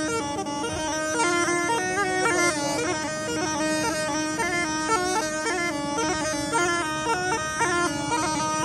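Snake charmer's been (pungi), a gourd pipe with reeds, playing a melody that steps quickly from note to note over one unbroken drone.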